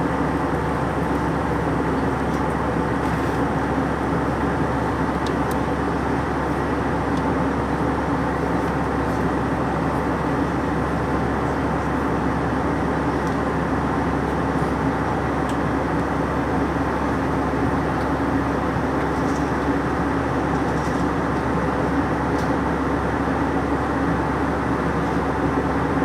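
Airbus A320 cabin noise in flight: the engines and rushing airflow make an even, unbroken drone, with a low steady hum underneath.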